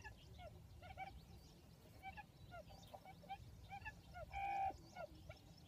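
Faint chirping of small birds: many short, quick calls that bend in pitch. About four seconds in comes one louder, longer call lasting about half a second.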